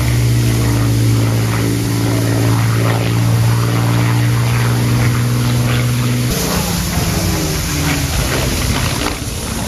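Spitfire piston aero-engine droning in a flyby: a loud, steady deep drone that changes abruptly about six seconds in, its pitch then sinking slightly.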